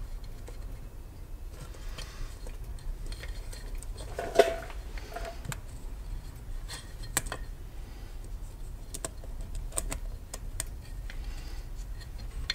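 Metal parts of a Puch ZA50 moped engine clicking and clinking as a part is worked by hand into the case half, with scattered light clicks and one louder clunk with a brief ring about four seconds in.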